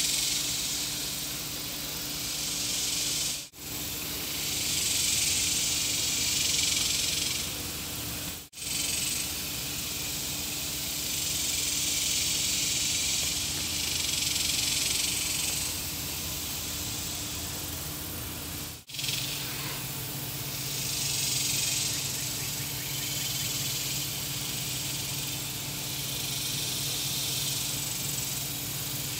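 Evening insect chorus outdoors: a steady high hiss that swells and fades every few seconds, over a low steady hum. It cuts out briefly three times.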